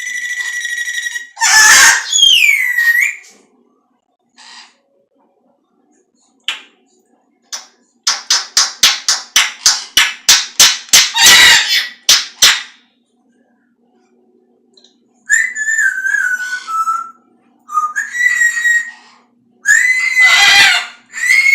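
Pet parrot vocalising. It gives a held whistle, then a loud screech that swoops in pitch. About a third of the way in comes a rapid run of about fifteen sharp clucking notes, and near the end a few wavering whistles.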